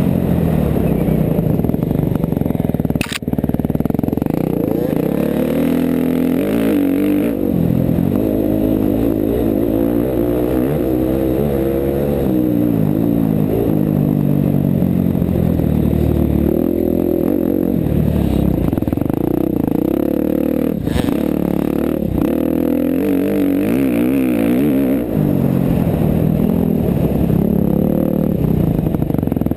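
KTM 350 XC-F's single-cylinder four-stroke engine revving hard through the gears, its pitch repeatedly climbing and dropping as the rider accelerates and rolls off along a dirt trail.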